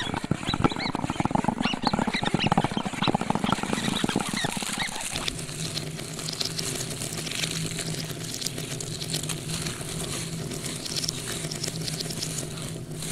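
Creature-like sound effects for an animation: rapid chattering clicks and short squeaky chirps. About five seconds in, these give way to a steadier low hum with a light hiss.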